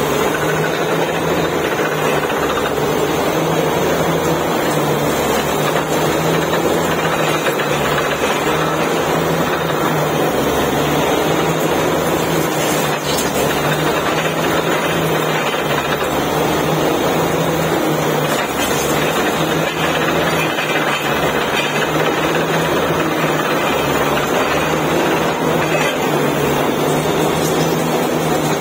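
Truck-mounted borewell drilling rig running steadily while it drills, a dense mechanical din with a low hum that swells and fades every second or two, as muddy slurry and cuttings are flushed out at the well head.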